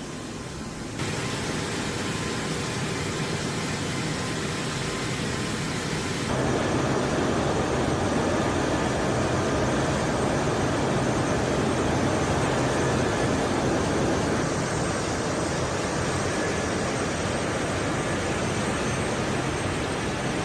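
Jet engines of a C-17 Globemaster (four turbofans) running at high power: a steady rushing noise with a faint high whine. The sound steps up abruptly about a second in and again about six seconds in.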